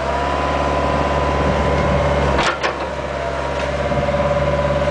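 Bobcat 430 ZHS mini excavator's diesel engine running steadily under work, with a steady whine over the engine note and a sharp knock about two and a half seconds in.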